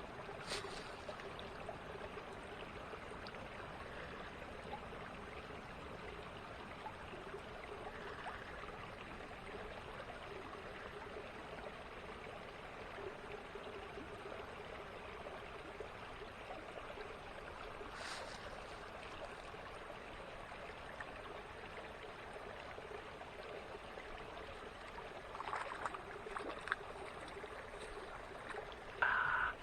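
Small creek running steadily over its bed, with a sharp click about half a second in, another around eighteen seconds, and a few brief louder knocks or rustles near the end.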